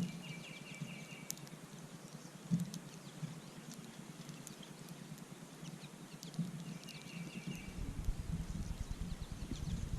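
A songbird singing a short, even trill twice, once near the start and again about seven seconds in, over outdoor ambience with scattered faint clicks and a low rumble that comes up near the end.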